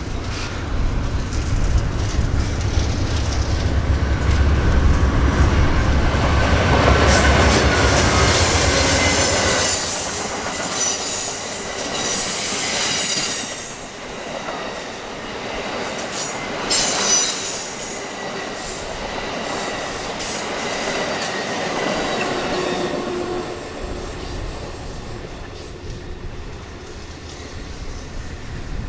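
Amtrak GE P42DC diesel locomotive passing close by with a deep engine rumble for the first several seconds. The bilevel Superliner cars then roll past with wheel clatter and high-pitched flange squeal on the curve, loudest about 12 and 17 seconds in. The sound fades as the train pulls away.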